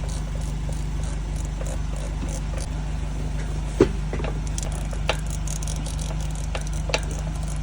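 A steady low mechanical hum, with three short sharp clicks or knocks at intervals of about one to two seconds, from hands and tools working on an outboard motor's tilt assembly.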